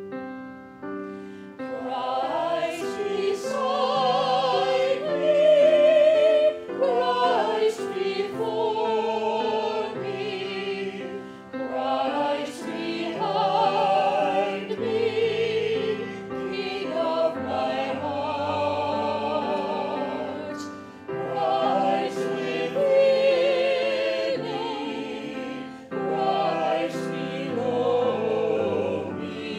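Small mixed church choir singing an anthem with vibrato, accompanied by grand piano, in several phrases with short breaks between them.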